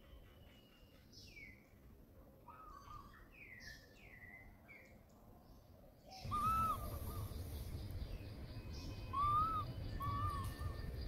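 Outdoor bird calls: a run of short falling chirps, then, after the background noise jumps up suddenly about six seconds in, a short arched call heard three times.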